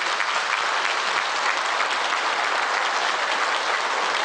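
A small crowd of people clapping steadily.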